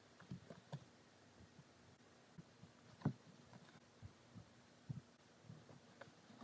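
Faint, scattered soft taps and rubs of fingers handling taut linen in an embroidery hoop while floss is woven and pulled around pins. The strongest tap comes about three seconds in.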